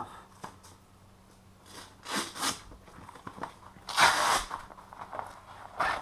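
Hook-and-loop (Velcro) lower straps on tree-climbing spurs being ripped open: two quick rips about two seconds in, a longer, loudest rip about four seconds in, and a short one near the end.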